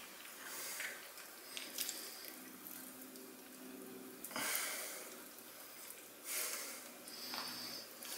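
Faint, soft squishing of raw pork being handled as thin wooden skewers are pushed through a rolled pork roulade, with two slightly louder swells about halfway in and again near the end.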